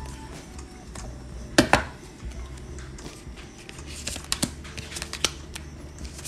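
Tarot cards being shuffled by hand: a string of crisp, irregular clicks and taps, with two louder knocks close together about a second and a half in.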